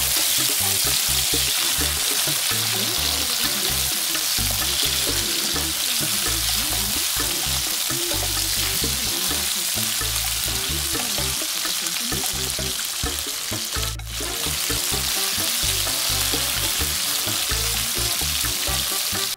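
Chicken slices and garlic sizzling steadily in hot oil in a nonstick wok while being stirred and turned with a spatula, the sizzle dipping briefly about fourteen seconds in.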